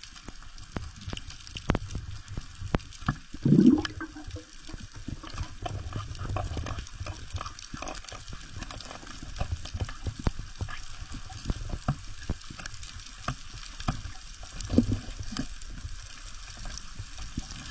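Underwater recording on a reef: a low rumble of water with many sharp clicks and knocks as the steel shaft of a speargun jabs and scrapes into a rock hole after an octopus. A short rising sound about three and a half seconds in.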